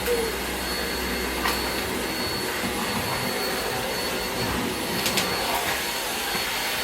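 Numatic Hetty cylinder vacuum cleaner running steadily, with a couple of faint clicks.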